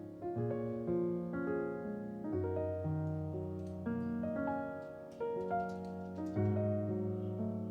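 Soft background piano music: gentle sustained chords that change about every second.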